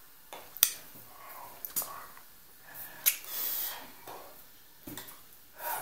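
A man talking in short, breathy phrases, broken by two sharp clicks, about half a second in and again about three seconds in.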